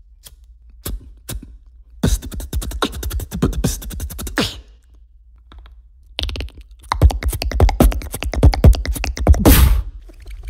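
A handheld lighter clicked close to the microphone: a few single clicks, then a quick run of clicking that stops about four and a half seconds in. After a short pause a beatboxer imitates the lighter with rapid mouth clicks, ending in a loud hiss just before the end.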